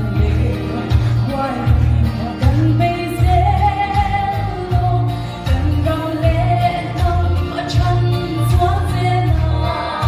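A woman singing a Mizo song into a microphone, amplified through a hall PA, over instrumental accompaniment with a strong, pulsing bass line.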